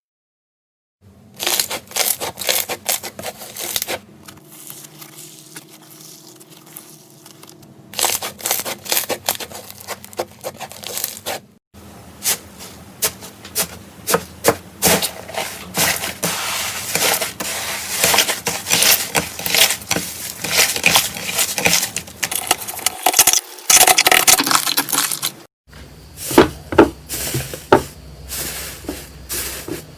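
Slime being squeezed, pressed and poked by hand, giving dense crackling and popping clicks. It comes in several short takes, each cut off abruptly.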